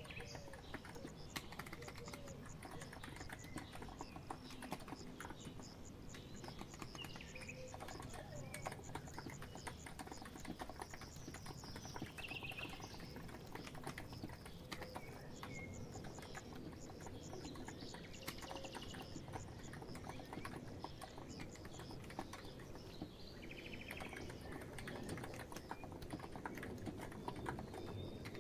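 Steady, irregular typing on a COX Empress electro-capacitive keyboard, a quick run of soft key clicks. Birds chirp in the background, with a few short trills.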